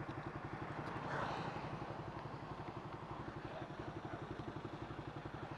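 Motorcycle engine idling steadily with an even, rapid pulse, with a brief rustle about a second in.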